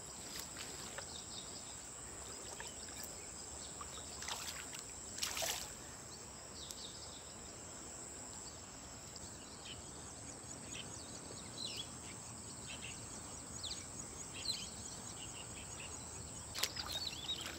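Quiet river ambience: light water splashing and trickling from wading and handling a net and fish in the water, with two louder splashes about four and five seconds in. Under it runs a steady high insect drone, and short bird chirps come here and there.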